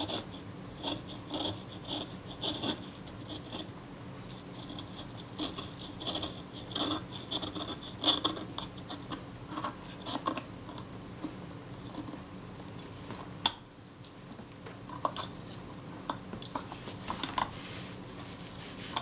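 Thin leather covering being pried and peeled off a metal camera body with a small metal tool, against tenacious old glue: irregular scratching and scraping, with one sharper click past the middle.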